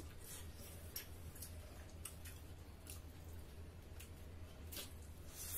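Faint eating sounds of people eating with their hands: scattered wet mouth smacks and chewing clicks, a few a second, over a low steady hum.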